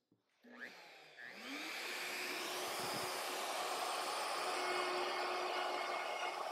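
Festool OF 1400 plunge router switched on about half a second in, spinning up to speed with a rising whine, then running steadily at full speed together with the dust extractor drawing through its hose.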